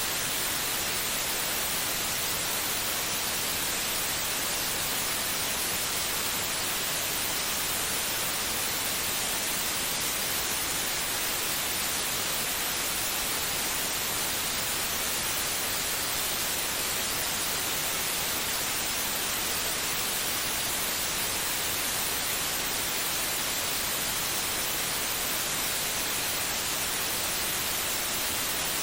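Steady, unchanging white noise: an even hiss, strongest in the treble, with no pulse or rhythm.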